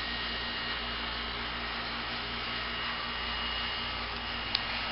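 Bryant outdoor heat pump units running: a steady compressor hum under the rush of the condenser fans, with one short click about four and a half seconds in.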